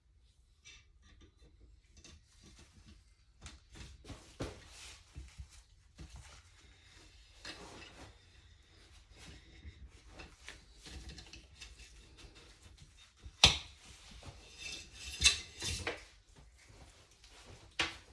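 A cleaning rod with a patched .22 jag pushed through the bore of a Remington 514 .22 rifle: irregular scraping and rubbing with light metallic clicks and rattles, and a few sharper knocks in the second half, the loudest about three quarters of the way in.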